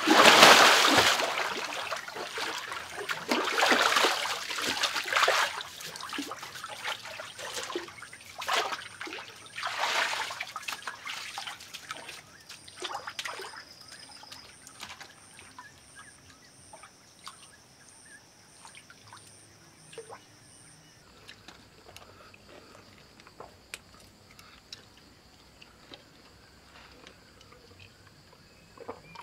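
Water splashing and sloshing as a person wades through a shallow pool. The splashing is loudest right at the start, surges again a few times over the next ten seconds, then dies down to small drips and trickles with a faint steady high tone behind.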